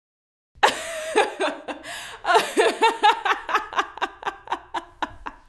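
A woman laughing: after a short silence a burst of laughter breaks out about half a second in, then runs on as a string of quick "ha" pulses, about five a second, that grow softer toward the end.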